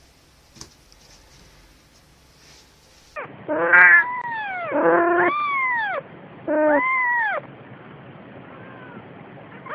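Cat meowing loudly: three long calls, each rising and falling in pitch, starting about three seconds in, then a few fainter, shorter mews.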